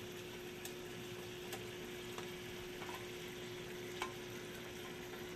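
Yogurt curry gravy sizzling steadily in a pan with fried fish pieces in it, with a few light clicks of a utensil against the pan and a faint steady hum underneath.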